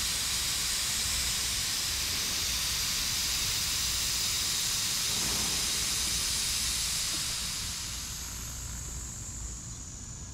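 Air rushing out of an inflatable FlatJack tire leveler through its open valve as it deflates under a wheel: a steady hiss that weakens about three-quarters of the way through, with a thin high whistle near the end.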